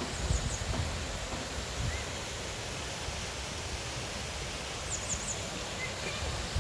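Steady rushing of a waterfall, with a few low thumps near the start and faint high chirps near the start and again about five seconds in.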